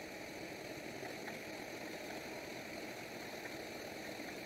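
Passenger express train arriving, its coaches rolling past on the rails with a steady, even rolling noise of wheels on track.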